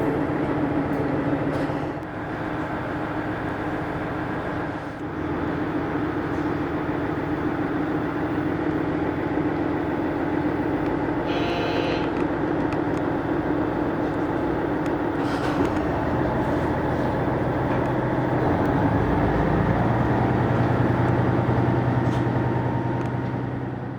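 Two-car diesel railcar running along the line, heard from inside the car: a steady engine drone over rail and running noise, the engine note shifting lower-pitched and louder about three quarters of the way through. A brief high tone sounds once near the middle.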